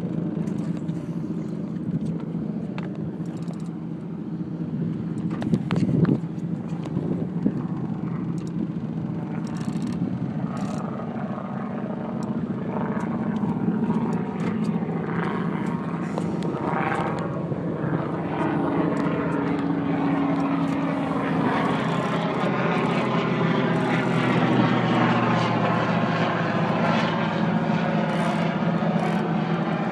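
An engine running steadily, growing somewhat louder in the second half, with a sharp knock about six seconds in.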